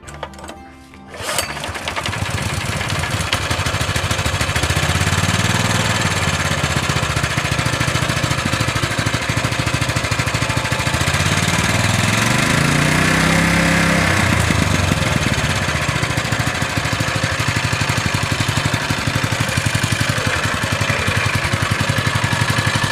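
Bravo GX160 5.5 hp single-cylinder engine pull-started on the recoil rope, catching about a second in and then running steadily, revved up and back down once around the middle. It is running with freshly set valve clearances (tappets), the fix for its rough, knocking running.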